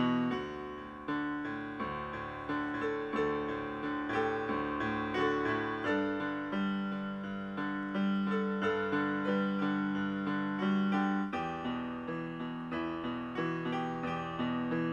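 Solo piano music: a gentle melody of evenly paced notes, about two a second, each ringing and fading.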